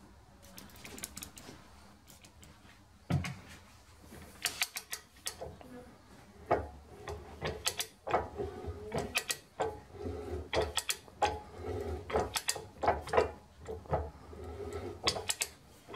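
Hand arbor press forcing a 5 mm keyway broach through the bore of an aluminium pulley, a deeper second pass with shim stock behind the broach: a run of irregular sharp clicks and scrapes as the broach teeth cut, starting about three seconds in.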